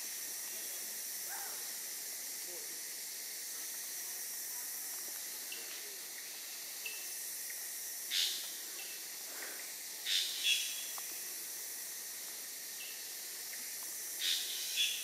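Rainforest background with a steady high-pitched hiss of insects. A few short, sharp animal calls stand out over it, two pairs of them in the second half.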